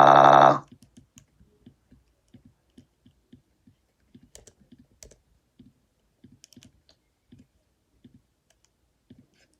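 A loud buzzing electronic tone that cuts off sharply about half a second in, followed by faint, irregular clicks and taps, roughly two or three a second.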